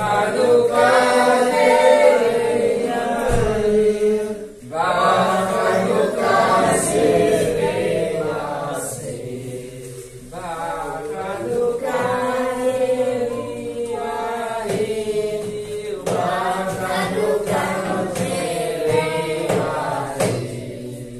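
A group of voices singing a Hanukkah song together, unaccompanied, in long phrases with short breaks about four and ten seconds in and again near the end.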